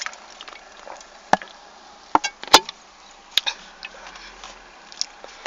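A handful of sharp, irregular clicks and knocks over a faint steady background, the loudest about two and a half seconds in.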